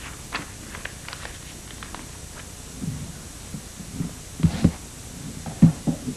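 Sheets of paper being handled and shuffled on a desk: scattered light rustles and clicks, with a few dull knocks about four and a half and five and a half seconds in.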